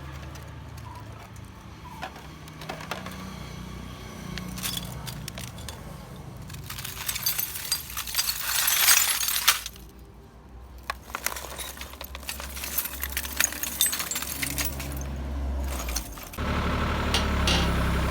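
Kobelco excavator crushing something brittle under its engine's low steady running, with scattered clicks and a dense burst of cracking and clinking about seven to nine seconds in. The engine gets louder near the end.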